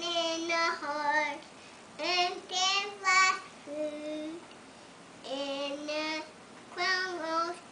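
A toddler singing in short phrases of long held notes, about five phrases with brief pauses between them.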